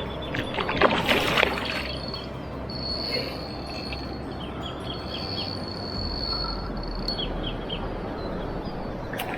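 A short rush of noise about a second in, then high, thin whistles and short chirps of bird calls over a steady outdoor background.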